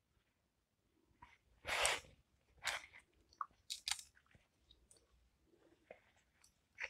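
Embroidery thread being drawn through casement cloth as the fabric is handled: a series of short rustles and scratches, the longest and loudest about two seconds in.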